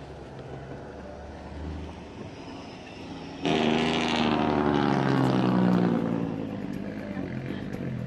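A vehicle's engine running, heard from inside the vehicle: a steady low hum that turns suddenly louder and harsher about three and a half seconds in, its pitch sagging a little, then eases off over the last couple of seconds.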